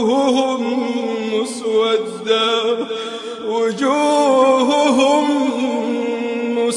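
A man reciting the Quran in a melodic tajweed style, drawing out long held notes whose pitch rises and falls, with a couple of brief pauses.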